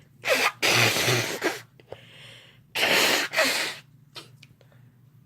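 Two loud induced sneezes, each a sharp rush of noise in two parts, the second coming about two seconds after the first.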